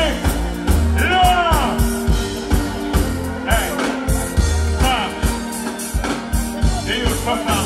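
Live band playing a dancehall groove through a concert PA, with a heavy kick drum and bass beat; a vocalist's voice on the microphone comes in briefly a few times over the music.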